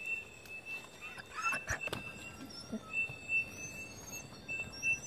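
Dog digging at a burrow in earth: short, irregular scrapes and snuffles, the busiest stretch about a second and a half in. Behind it runs a steady high insect trill that breaks off and resumes, with a few short high chirps near the end.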